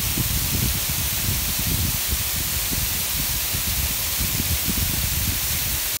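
Waterfall cascading down a steep rock face: a steady hiss of falling water and spray, with a low, uneven rumble underneath.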